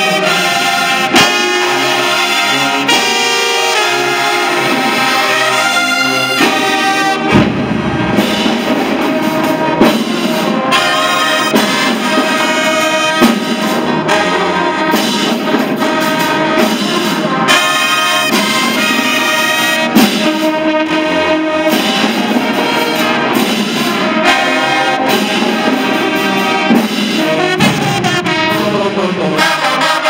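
Marching band brass section of trumpets, trombones and larger horns playing a tune together with sharp accented hits. The sound fills out lower and fuller about seven seconds in.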